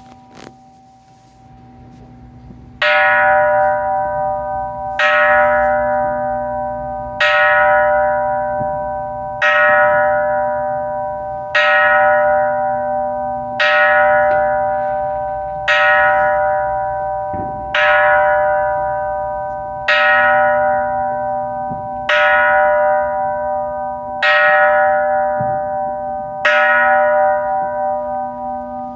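Small hanging Buddhist temple bell of bronze struck with a wooden mallet twelve times, about every two seconds, starting about three seconds in. Each stroke rings on with a steady, layered tone that is still sounding when the next stroke lands.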